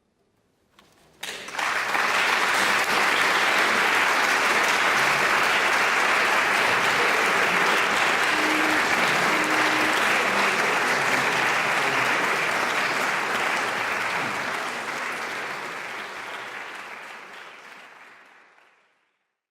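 Audience applauding, starting suddenly about a second in, holding steady, then fading away over the last few seconds.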